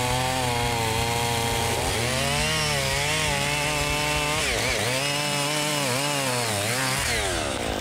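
Gas chainsaw cutting into a thick tree trunk. It runs at a steady high pitch, then the engine speed repeatedly dips and recovers as the chain loads up in the cut. Near the end the pitch drops away.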